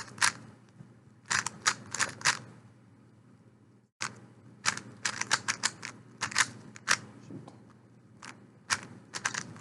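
3x3 Rubik's cube being turned fast by hand: its plastic layers click and clack in quick irregular runs of turns during the last-layer steps of a solve. The clicking cuts out briefly about four seconds in, then carries on.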